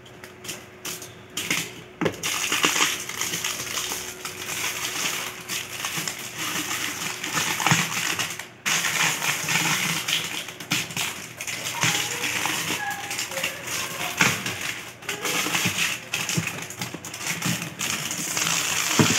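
Scissors snipping through plastic shrink wrap, with the film crinkling and crackling as it is cut and pulled off a cardboard box.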